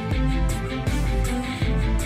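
Music with a steady beat and a deep bass line.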